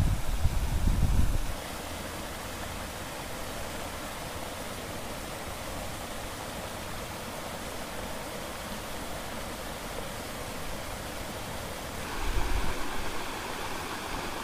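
Steady rushing of flowing river water and small falls spilling off a concrete dam. A low rumble is heard at the start for about a second and a half, and briefly again about twelve seconds in.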